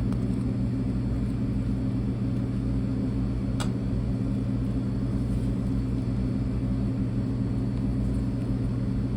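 A steady low mechanical hum that holds at an even pitch and level throughout, with one sharp click about three and a half seconds in.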